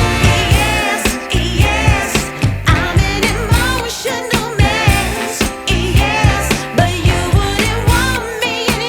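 Background pop song with a sung vocal over a steady drum beat.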